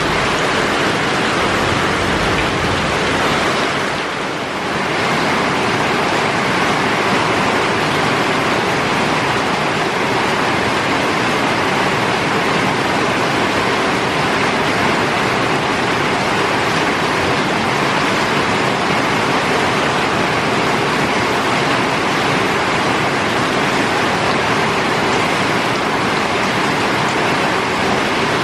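Heavy rain pouring down, a dense steady hiss that eases briefly about four seconds in.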